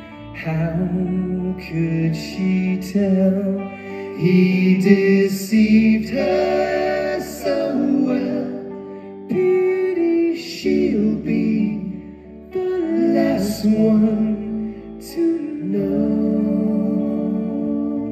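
Live band playing a slow sixties pop ballad: several male voices singing in close harmony over electric guitar and bass guitar, the low bass notes held long under the sung phrases.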